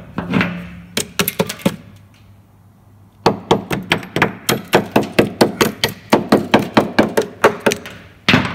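Hammer striking the rusty steel underbody of a van: a few separate knocks, then a quick, even run of about five strikes a second.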